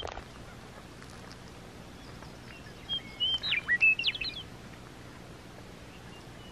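A songbird sings one short phrase of quick whistled notes that rise and fall, starting about three seconds in, over a faint steady outdoor background.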